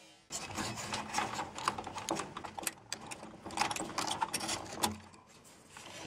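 The plastic push-pin fasteners of a stock Intel CPU cooler being twisted and worked loose by hand: a dense run of plastic clicks and rattles that thins out about five seconds in.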